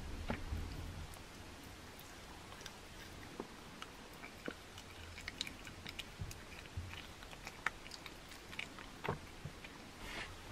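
A domestic cat chewing raw meat: quiet, irregular wet clicks and smacks of its teeth and jaws.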